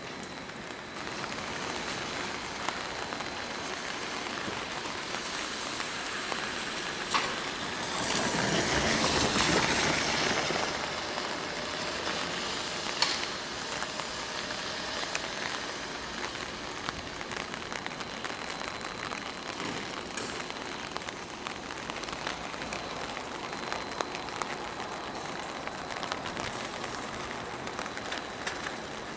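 Steady heavy rain falling and spattering on surfaces. About a third of the way in a louder rushing swell rises for a few seconds and fades, and there are a couple of sharp taps.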